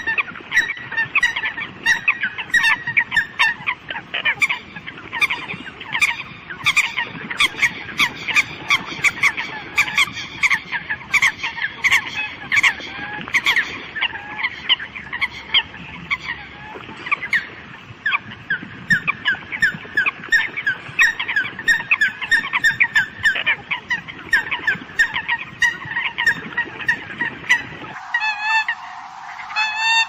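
A flock of Eurasian coots calling: a dense run of short calls, several a second and overlapping. Near the end the calls turn thinner and higher, and the low background drops away.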